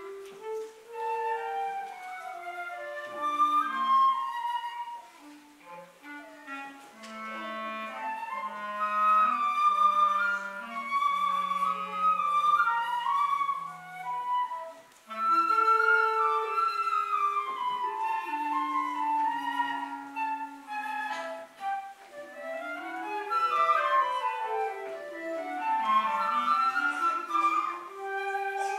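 Flute and clarinet playing a duet, the flute's line above the clarinet's, with a short break about halfway. Near the end both play fast scale runs up and down that cross each other.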